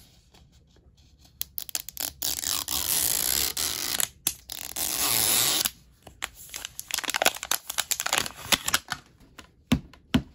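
Plastic film wrapper being torn and peeled off a plastic Mini Brands toy capsule ball: a dense, scratchy tearing for about four seconds starting a second and a half in, then scattered crinkles and clicks as the ball is handled.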